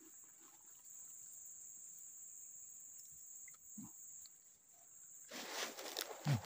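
Insects keeping up a steady, high-pitched drone. Near the end comes a louder rustle of handling close to the microphone as the caught fish is held up.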